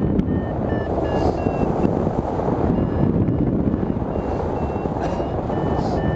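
Hang glider's variometer beeping in short, quick tones, about three a second, its pitch wavering slightly, which signals that the glider is climbing in lift. The beeps pause twice briefly, over a steady rush of wind on the microphone.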